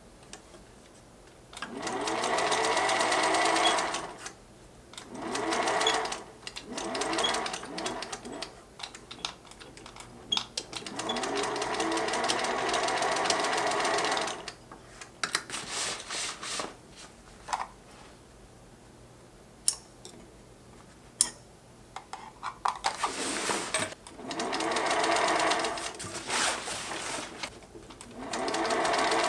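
Singer sewing machine stitching through heavy fabric and a zipper in six runs of a few seconds each, the motor speeding up at the start of each run. Scattered sharp clicks fall in the pauses between runs.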